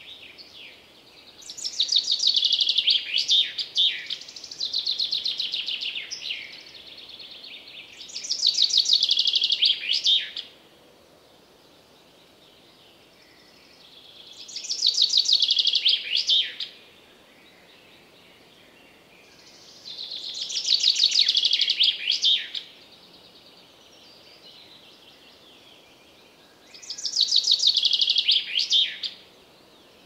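Common chaffinch singing: about five song phrases, each a rapid trill of two to three seconds ending in a quick flourish, repeated every six seconds or so, with a faint steady hiss between them.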